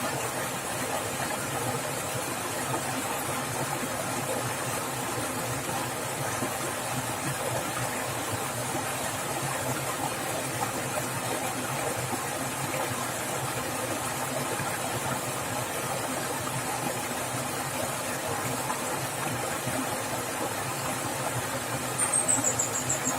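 Rushing forest stream water splashing, a steady even noise. Near the end a brief high-pitched run of short notes falls in pitch over it.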